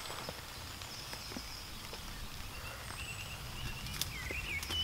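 Woodland background with a small bird twittering in short chirps through the second half, and a couple of sharp clicks near the end, with faint movement in the undergrowth.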